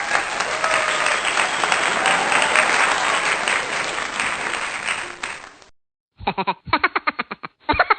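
Crowd applauding and cheering, which cuts off suddenly about six seconds in. After a brief gap comes a fast run of sharp pulses, about seven a second.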